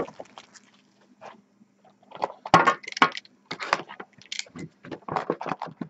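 A trading card box being opened and handled, with a run of irregular crackles and clicks of cardboard and wrapping starting about two seconds in.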